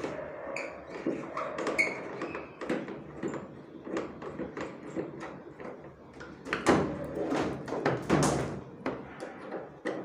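Screwdriver clicking and scraping against the plastic control panel of an LG top-load washing machine as its screws are taken out: a run of irregular small knocks and scrapes, busiest and loudest about seven to eight seconds in.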